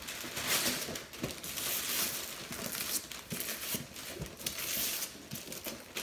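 Gift wrapping paper being ripped and crumpled by two children's hands, a busy run of irregular rips and rustles.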